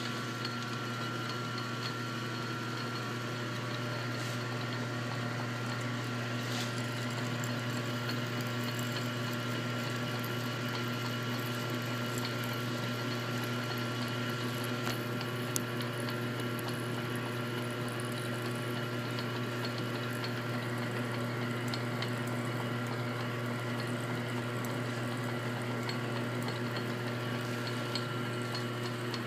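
Small metal lathe running at steady speed, its motor and spindle giving a constant low hum with a few steady higher whining tones, while a tap cuts threads in the spinning workpiece. An occasional faint tick sounds over the hum.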